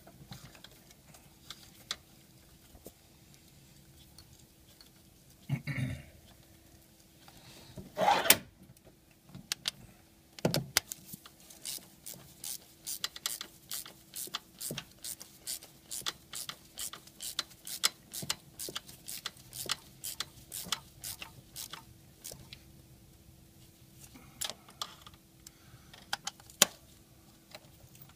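Socket ratchet clicking in a steady run of about three clicks a second as a spark plug is run into the Ford 4.6L V8's cylinder head, with a louder clatter of tools about eight seconds in and a few more clicks near the end.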